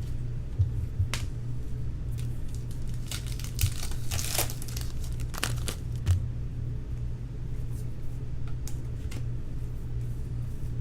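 Baseball card pack wrappers crinkling and tearing in scattered bursts as packs are opened and handled, busiest around the middle, over a steady low hum.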